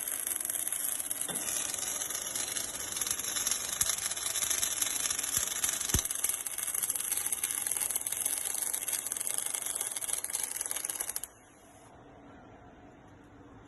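MIG welding arc crackling and sizzling steadily as an automatic welder runs a seam around a hydraulic cylinder's oil port. The arc cuts off suddenly about eleven seconds in, leaving a faint steady machine hum.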